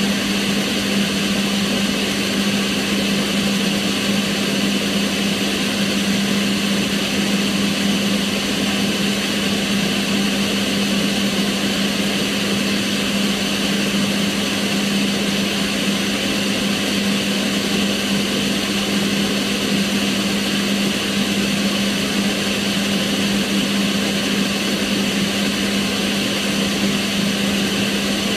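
Kitchen range hood extractor fan running steadily: an even rush of air over a constant low hum, with no change in speed.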